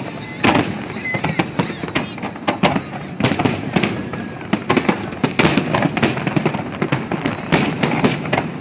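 Aerial fireworks shells bursting in a dense barrage: sharp bangs, several a second at irregular intervals, over a continuous background din.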